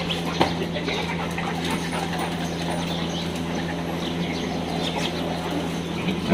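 A pack of dogs milling and playing on a tiled floor, with many light clicks and scuffles throughout, over a steady low hum and small birds chirping.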